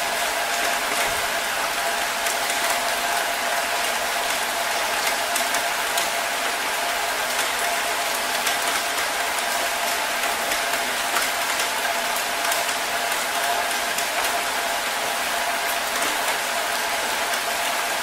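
Steady rain falling: an even hiss of drops, dotted with many small ticks of single drops.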